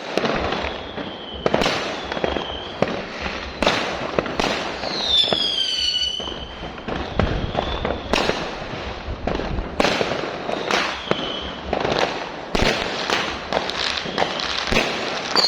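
New Year's Eve fireworks going off continuously: many sharp bangs at irregular intervals, with whistling shells whose pitch falls, the clearest about five seconds in.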